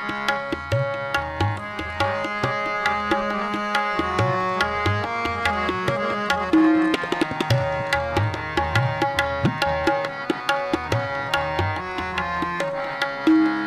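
Instrumental music: tabla playing a steady beat under held, sustained melodic chords, the lead-in to a devotional Hindi song.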